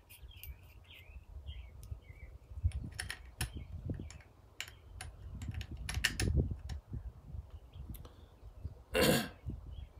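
Small metal clicks and taps from a Lee hand press and its priming parts being handled, with birds chirping early on. A louder rushing burst lasting about a third of a second comes near the end.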